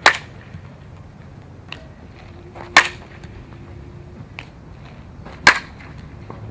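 Softball pitches popping into a catcher's mitt: three sharp pops, each about two and a half seconds apart, with a few faint clicks in between.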